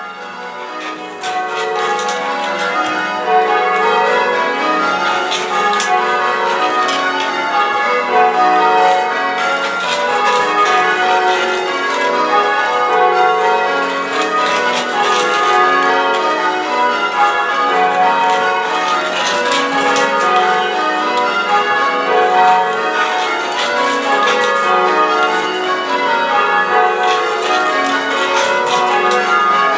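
A ring of church tower bells in change ringing: the bells struck one after another in a steady, even rhythm, their order shifting from row to row. The ringing fades up over the first few seconds, then runs on loud.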